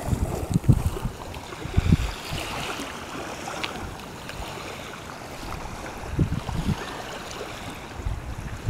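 Wind buffeting the microphone in gusts, at the start, about two seconds in and again around six seconds in, over a steady wash of small waves on open water.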